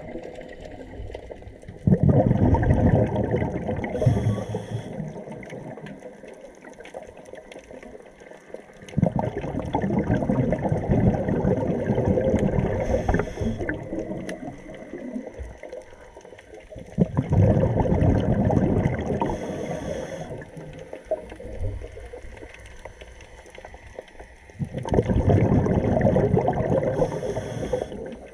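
Scuba diver's exhaled air bubbling out of the regulator underwater, four gurgling bursts about seven to eight seconds apart, each lasting several seconds, with a short high hiss near the end of each. This is the slow breathing rhythm of a diver.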